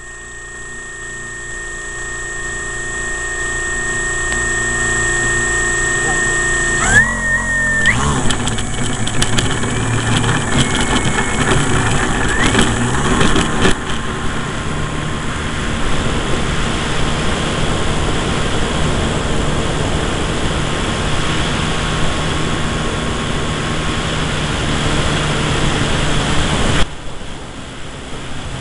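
Electric motor and propeller of an RC Tiger Moth model heard from a camera on board. A steady whine grows louder over the first few seconds. From about seven seconds in, a run of knocks and rattles comes as the plane rolls over the grass on its takeoff run. After that, motor hum and rushing air carry on steadily while it flies, until the sound drops suddenly near the end.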